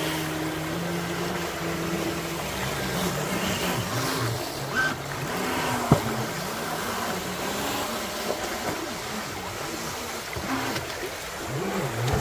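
Pro Boat Jet Stream RC jet boat's electric jet drive running on the water. Its whine holds a steady pitch briefly, then rises and falls as the throttle is worked, with a sharp click about six seconds in.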